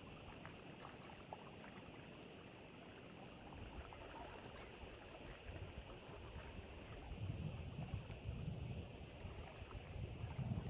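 Wind buffeting the microphone over a faint steady hiss. The low rumbling gusts grow stronger in the second half.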